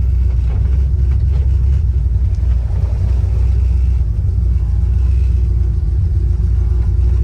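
1967 Pontiac Firebird's 400 cubic-inch V8 running at a steady pace while driving, a deep, even low rumble with no revving.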